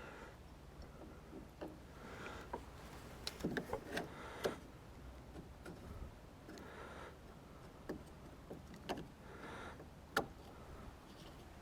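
Sporadic light clicks and knocks over a quiet background, a few grouped together about three to four seconds in and a sharper single click near the end.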